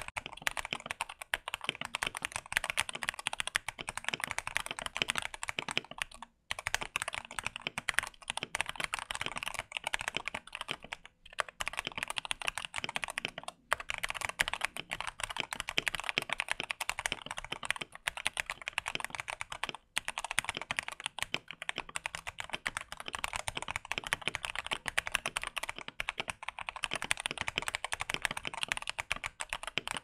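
Typing on a Thunderobot K104 full-size mechanical keyboard modded with lower case foam, a tape mod and tuned stabilizers, its switches unlubed: a fast, steady run of keystrokes, broken by a few short pauses. It sounds really nice.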